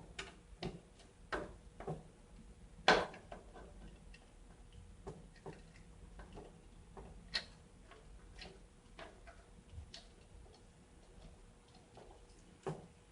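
Irregular light clicks and taps of a CPU cooler being handled and fitted onto its mount on the motherboard, with one sharper knock about three seconds in.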